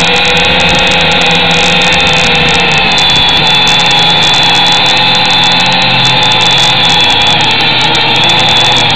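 Small quadcopter drone's electric motors and propellers running, heard close up through its own onboard camera: a loud, steady whine of several stacked tones that drift slightly in pitch as the drone manoeuvres.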